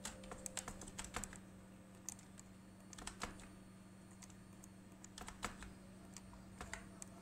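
Computer keyboard keys and mouse buttons clicking faintly in short scattered clusters, with a steady low hum underneath.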